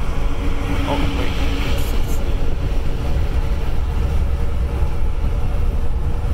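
Steady low road and engine rumble heard inside the cabin of a moving vehicle, with a faint humming tone for the first second or two.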